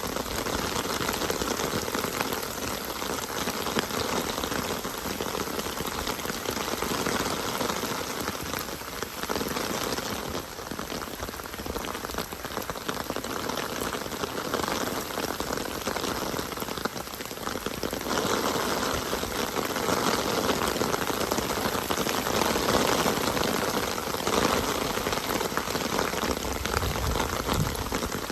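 Steady rain falling, a dense even wash of drops, a little louder in the second half.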